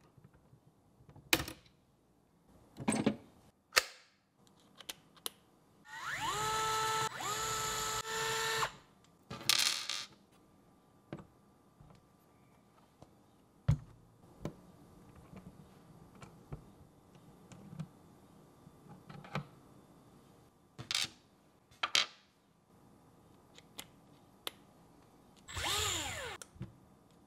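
Small cordless drill-driver whirring in two short runs back to back about six seconds in, each rising quickly to a steady pitch, then one brief run near the end that winds down in pitch. Between the runs come scattered clicks and knocks of small parts being handled.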